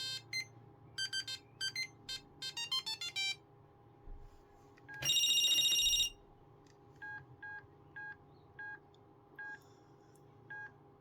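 Ericsson T20s mobile phone playing ringtones through its small speaker: a quick tune of short, single-note beeps ending in a fast rising run. About a second and a half later comes one loud held tone lasting about a second, then a row of fainter, evenly spaced short beeps about every half second.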